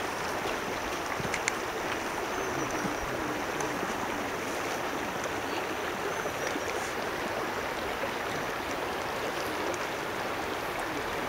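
Flowing stream water: a steady, even rushing hiss.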